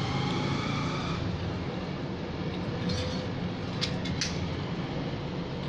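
Steady hum of passing road traffic and motorbikes, with two light clinks, like a utensil on a dish, close together a little before four seconds in.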